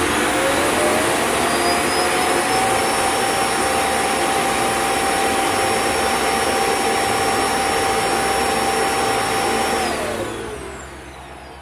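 The Proscenic M7 Pro's self-emptying dust-collector base runs its suction motor to empty the robot's dust bin: a loud, steady rush of air with a whine that rises as the motor spins up over the first couple of seconds. The sound winds down and stops about ten seconds in.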